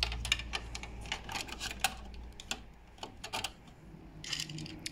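Irregular hard-plastic clicks and taps as the automatic buttonhole foot is set back into the sewing machine's plastic accessory tray and the tray is handled.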